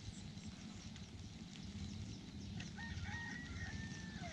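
A rooster crowing once: a single drawn-out crow of about a second and a half, starting a little past halfway through, over a low steady background rumble.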